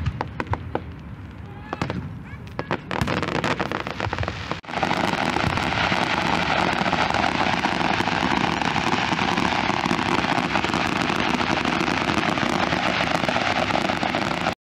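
Aerial fireworks: separate bangs and crackles at first, then from about five seconds in a dense, continuous crackling barrage that cuts off suddenly near the end.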